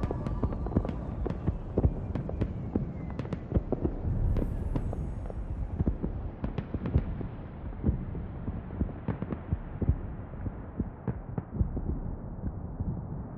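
Scattered, irregular sharp pops and crackles over a low rumble, slowly fading away.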